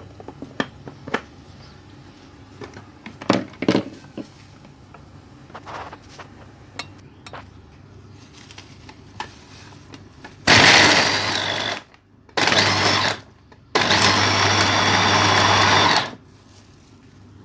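Electric food chopper grinding raw prawns with ice cubes, garlic and egg into a paste for shrimp meatballs, run in three pulses: one of about a second and a half, a short one, then a longer one of about two and a half seconds. Before the motor starts there are a few light clicks and knocks from the bowl and lid being handled.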